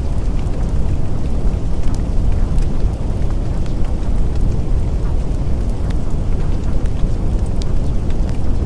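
Steady, dense low rumbling noise with a few faint scattered ticks, unchanging throughout.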